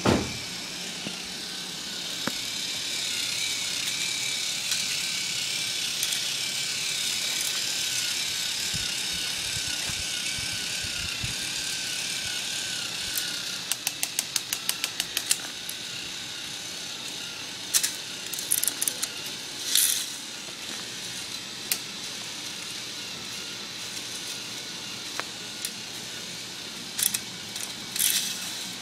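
K'nex roller coaster's motor-driven chain lift running with a steady whine and rattle. A thump right at the start, a quick run of regular clicks about halfway through (about six a second), and several sharp clacks later on.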